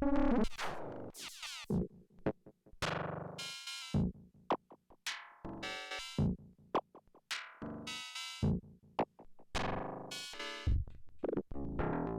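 Erica Synths Perkons HD-01 drum machine playing a slow pattern of experimental synthesized percussion, with no external effects. It gives separate pitched hits and zaps with short gaps between them, several of them sweeping steeply down in pitch.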